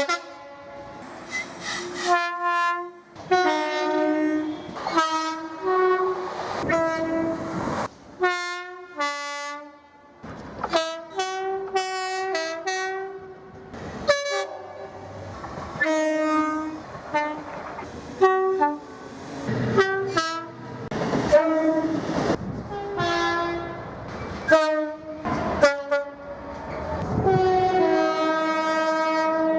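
Multi-tone train air horns sounding a long string of short blasts, several notes at once in shifting chords, one or two blasts a second with brief gaps between them.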